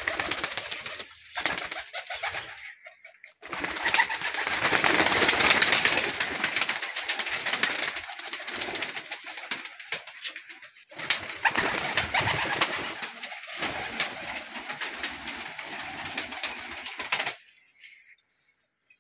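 Domestic pigeons cooing in a loft over a dense, crackly noise, broken by a few short pauses; the sound cuts off suddenly near the end.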